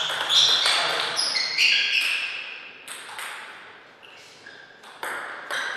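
Table tennis rally: the celluloid ball clicks sharply off the bats and the table in quick succession, each hit with a short ringing tail. The exchange ends about two seconds in, and a few single bounces follow.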